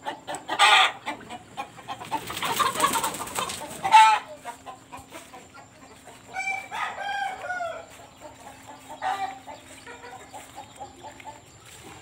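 Chickens clucking and calling, with a rooster crowing once about six seconds in, a call lasting about a second and a half.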